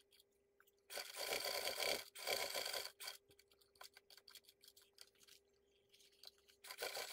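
Fabric and stiff non-woven interfacing rustling and sliding over a cutting mat as lining pieces are stacked and shifted, in a few bursts of about a second each with small ticks between. A faint steady hum sits underneath.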